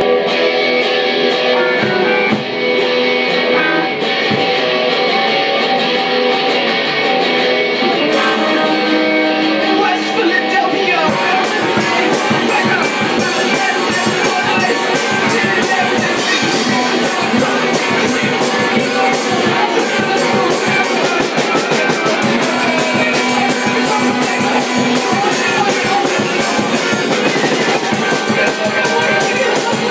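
Amplified electric guitar and a drum kit playing together in a rehearsal jam. The first stretch is mostly held guitar chords; about eleven seconds in, the drums come in with a steady, busy beat under the guitar.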